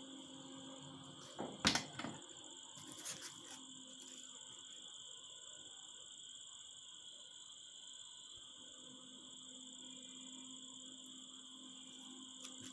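A few sharp knocks and scrapes as a foam sheet and its wooden edge strip are handled, loudest about two seconds in, with a smaller group a second later. Under them a steady high-pitched whine and a faint low hum run throughout.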